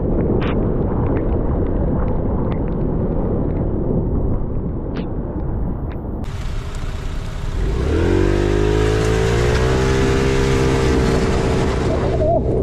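Aprilia SXR 50 scooter on the move: a steady low rumble of wind and road noise, then about halfway through the engine picks up speed, its pitch rising for about two seconds before holding steady.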